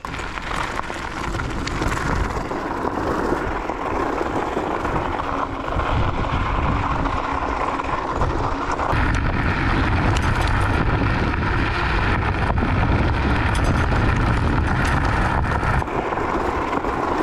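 Riding noise from a Varla Eagle One electric scooter on knobby off-road tyres running down a loose gravel trail: wind buffeting the microphone over the crunch of the tyres on gravel, with scattered small knocks and rattles. The wind rumble grows heavier about halfway through as speed picks up.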